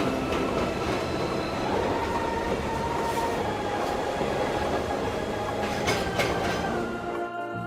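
Train running on rails with a steady rumble and clatter and two sharp clanks about six seconds in. Organ-like music comes in near the end.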